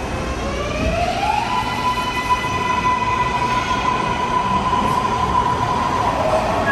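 MARTA rapid-transit train pulling away: its electric motor whine rises in pitch over the first second and a half, then holds steady over the rumble of the wheels on the rails.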